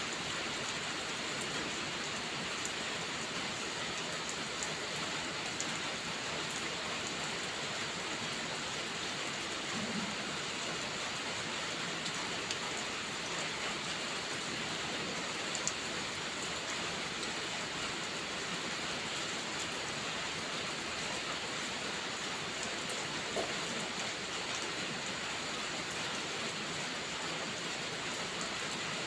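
Heavy rain falling steadily, an even hiss of drops, with a few soft crackles and pops from a wood fire now and then.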